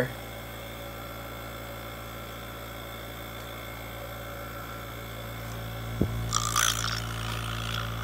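Steady low electrical hum. About six seconds in comes a sharp click, after which the hum gets slightly louder and a brief hiss follows.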